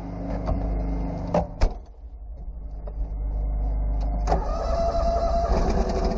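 Garden tractor's Honda GX620 V-twin engine running steadily. Two sharp knocks come about a second and a half in, then the engine sound goes duller for a couple of seconds. It comes back fuller after a click a little past four seconds, as the camera is handled and set down in the cab.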